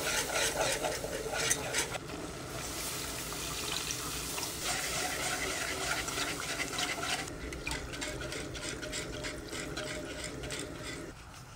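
A butter-and-flour roux sizzles in a nonstick pot as it is stirred. Milk is then poured in and whisked with a wire whisk into a béchamel, with wet, rhythmic whisk strokes that stop near the end.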